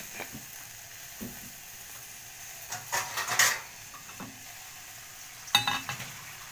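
Pasta sizzling in a pan with butter and tomato sauce while it is stirred, a utensil clacking against the pot in short bursts about three seconds in and again near the end.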